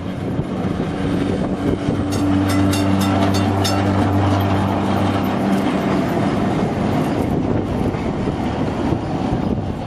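Vintage electric tram passing close by: a steady low hum under the rumble of the wheels on the rails, with a quick run of clicks from the wheels about two to four seconds in.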